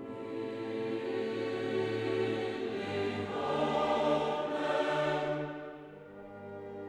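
Background music with choir-like sustained voices, swelling in the middle and easing off near the end.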